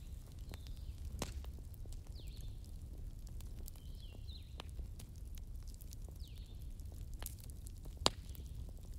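Daytime forest bonfire ambience: a campfire crackling with scattered sharp pops, the loudest about eight seconds in, while birds chirp in short falling notes over a low steady rumble.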